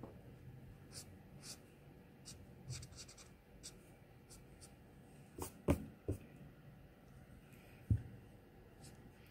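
A marker nib stroking across drawing paper: repeated short, scratchy swipes, about two a second, as shading is laid on an arm. A few soft knocks come a little past the middle and again near the end.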